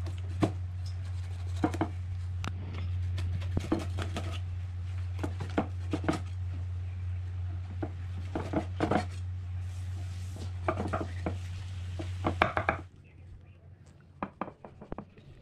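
Meat cleaver chopping through a whole diamond trevally in a metal wok: irregular sharp strikes, some in quick clusters, over a steady low hum. Near the end the hum stops and only faint light ticks of a knife scoring the fish remain.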